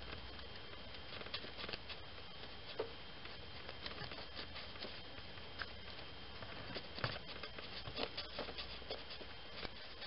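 Faint, irregular light clicks and taps of small metal and plastic parts as a hand works at the crankshaft position sensor and its small mounting bolt in a tight space, over a steady background hiss.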